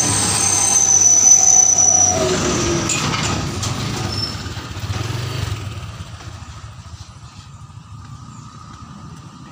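Isuzu FVM truck passing at close range on a slope, its diesel engine rumbling as its brakes squeal in thin high tones that slide slightly downward. The engine note falls about two seconds in, and the sound fades over the last few seconds.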